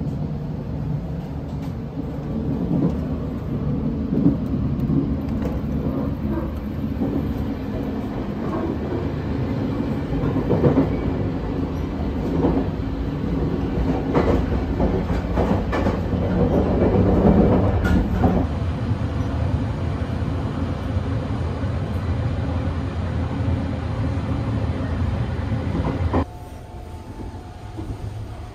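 Running noise of the Sunrise Express sleeper train heard inside the carriage: a steady low rumble from the wheels and track, with scattered knocks and clatter. It turns suddenly quieter a couple of seconds before the end.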